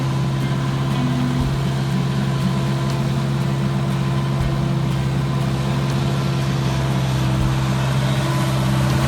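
A farm machine's engine running steadily, a constant hum with no change in speed.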